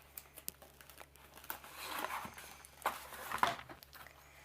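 A cardboard retail box being opened by hand: faint rustling and crinkling of card and packaging with scattered small clicks, and a couple of sharper clicks about three seconds in.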